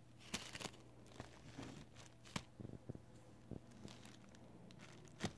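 Faint, scattered clicks and short scrapes of nail-stamping tools being handled: a scraper and a pink silicone stamper worked against the metal stamping plate.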